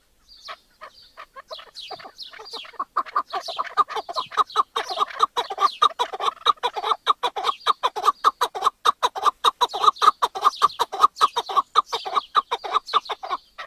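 Chukar partridge calling: a long, rapid run of clucking chuck notes, several a second, sparse at first and then building into a steady loud series from about two seconds in.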